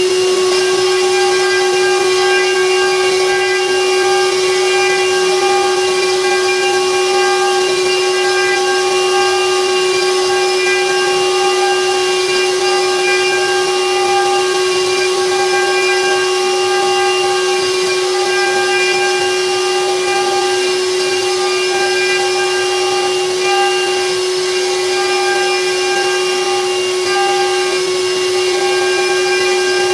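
CNC router spindle running at a steady high-pitched whine while its small bit mills a pocket in the wooden cutting board, with a hiss of cutting underneath.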